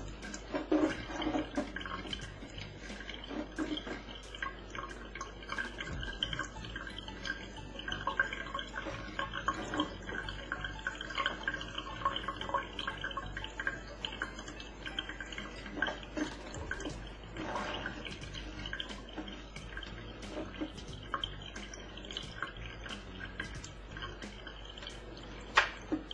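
Kitchen mixer tap running a thin stream into a stainless steel sink, a steady trickle with frequent small drips and splashes. A single sharp knock comes near the end.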